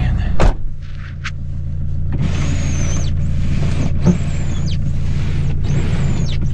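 Nissan Terrano diesel engine idling steadily after a cold winter start. There is a sharp knock about half a second in, and from about two seconds in a run of short hissing bursts, each under a second long, about one a second.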